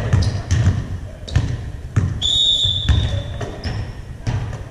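A ball bouncing repeatedly on a hardwood gym floor, a dull thump every half-second to second. About two seconds in there is a short high-pitched tone lasting under a second.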